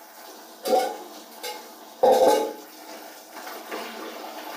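Clothes being hand-washed in a plastic bucket of water: two sudden loud knocks with splashing, one about a second in and a louder one about two seconds in, over a low steady background.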